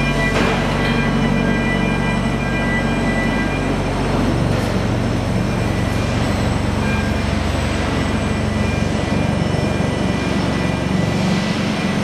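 Steady mechanical din of an automated precast-concrete demoulding and pallet-stacking line running, with several steady hum tones over the noise. A deeper rumble strengthens about four seconds in.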